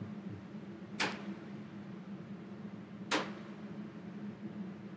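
Soft-tip darts striking an electronic dartboard: two sharp hits about two seconds apart, over a steady low hum.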